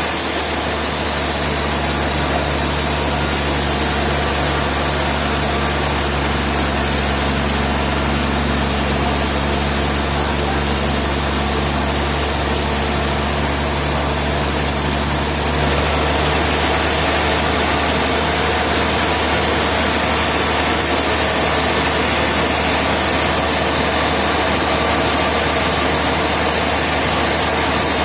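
Steady machinery drone, like an engine running, with a low hum under a dense noise. Its character shifts about halfway through, when some of the low tones drop out.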